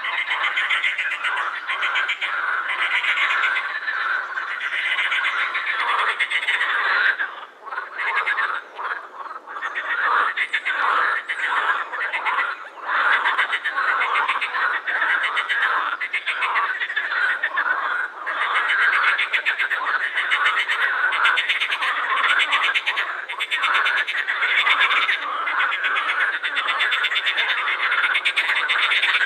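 Chorus of many edible frogs croaking at once: a dense mass of fast, pulsed croaks that thins briefly about a quarter of the way in, then fills back in.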